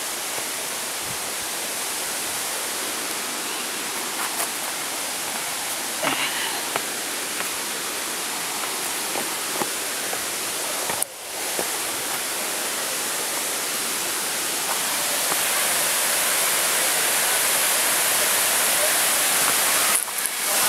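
Small mountain waterfall and stream rushing: a steady hiss of falling water that gets louder in the second half as it is approached. A few faint knocks are mixed in, and the sound briefly drops out about halfway through.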